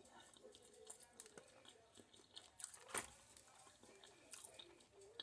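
Faint chewing of a bite of spicy garlic chicken roller: soft, irregular mouth clicks and smacks, with one sharper click about three seconds in.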